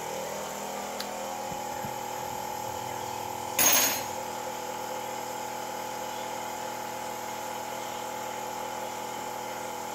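Electric compressor nebulizer running during a child's aerosol treatment: a steady buzzing motor hum. About three and a half seconds in, a brief burst of noise rises over it.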